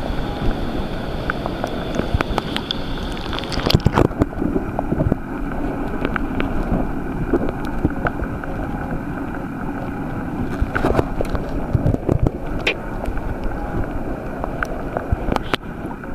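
Underwater ambience picked up by a camera in its housing: a steady low rumble with scattered sharp clicks and crackles.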